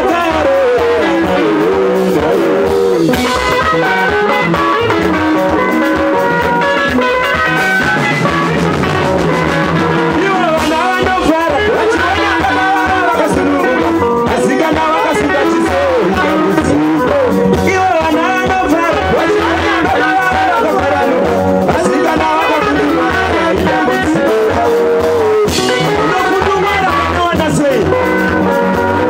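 Live band music played through a PA system: electric guitar and bass guitar under voices singing into microphones.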